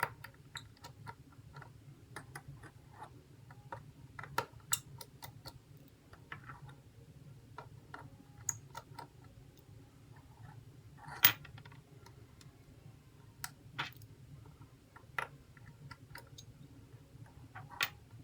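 Scattered small, sharp clicks and taps of a precision screwdriver and tiny screws on the iPhone 8 Plus's home-button bracket while its three screws are removed, the loudest click about eleven seconds in. A faint steady low hum runs underneath.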